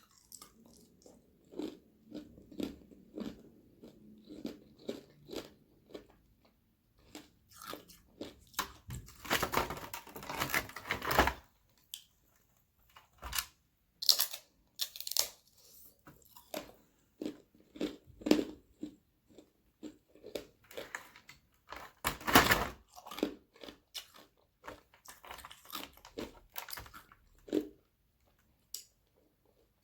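Close-miked biting and chewing of thin sheets of frozen carbonated-water ice: sharp, brittle crunches throughout. There are two spells of dense, louder crunching, about a third of the way in and again past two-thirds.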